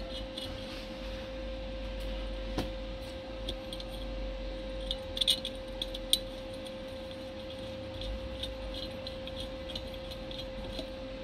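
Light metallic clicks and clinks of screws being turned in by hand into the flange of a homemade pipe tool bolted to a ZF S5D gearbox case. A few sharper clinks come about five and six seconds in, over a steady hum.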